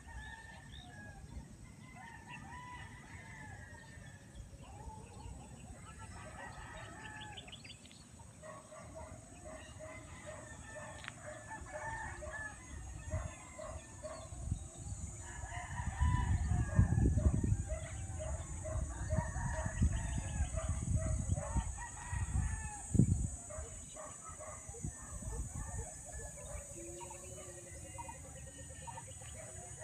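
Roosters crowing again and again, with clucking, over a steady high-pitched hiss. Low rumbling gusts of wind on the microphone from about halfway through, with a sharp thump near the end of the gusts.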